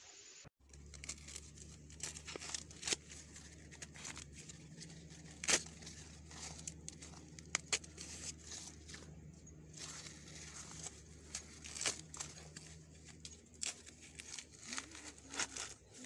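Corn husks and leaves rustling and crackling as ears of corn are handled and picked from the stalks, with irregular sharp snaps and tearing sounds.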